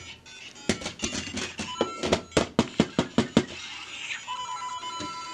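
Interactive LEGO Super Mario figure hopped along plastic bricks: about a dozen quick plastic clacks in under three seconds. Near the end comes a steady electronic tone from the figure's speaker.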